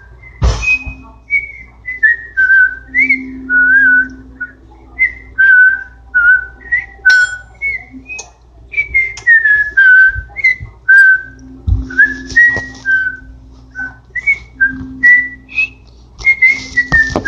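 A person whistling a tune of short notes that slide up and down, with a few sharp knocks now and then.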